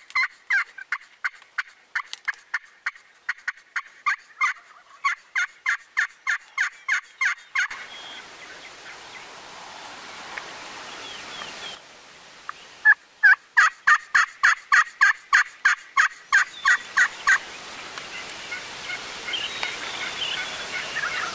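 Wild turkey hen yelping in two long, fast runs of notes, about three to four a second; the first run stops about a third of the way in and the second comes in just past the middle.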